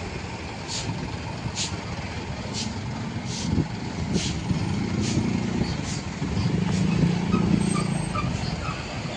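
Road traffic at a railway level crossing, with the crossing's warning bell striking about once every 0.85 seconds. A heavy vehicle's low drone swells twice in the second half.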